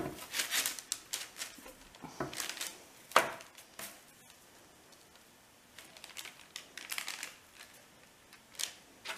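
Baking parchment crinkling and rustling in irregular spurts as hands press dough shapes through it onto a baking tray and peel it back, with the sharpest crackle about three seconds in.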